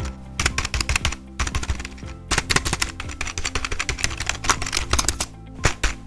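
Keys being typed rapidly on a ZGB G20 budget mechanical gaming keyboard with an all-plastic build: fast, irregular clacking keystrokes with a couple of brief pauses.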